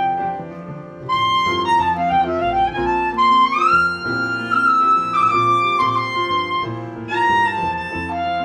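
Instrumental break in a pop song: a solo melody line of held notes that glide up and down between pitches, over a steady accompaniment.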